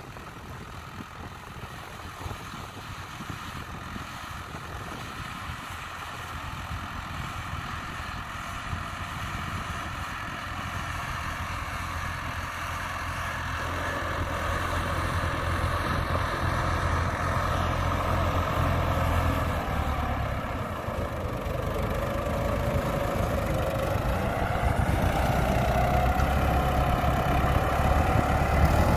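Diesel engine of an Iseki 725 four-wheel-drive tractor running under load as it pulls a seven-disc plough through the soil, growing steadily louder as the tractor comes closer.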